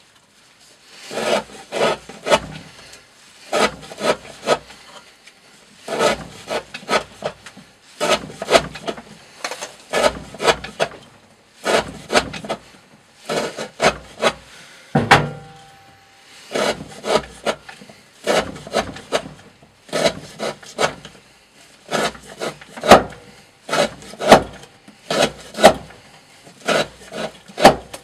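D2 steel knife blade sawing through thick rope in repeated cuts. Each cut is a quick cluster of three or four scraping strokes, about one cut every one and a half to two seconds, with a single heavier knock about halfway through.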